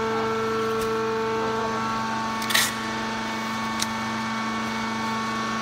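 Horizontal bagging baler for wood chips running with a steady mechanical hum of several held tones, with a sharp clack about two and a half seconds in and a lighter click a second later.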